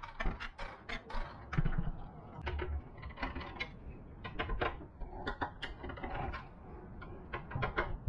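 A PC case being taken apart by hand: a run of irregular clicks, rattles and knocks from the drive cage being handled and a screwdriver working screws out of the steel chassis.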